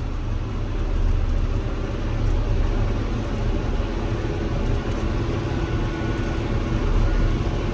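John Deere 6145M tractor engine running steadily, a low drone heard from inside the cab.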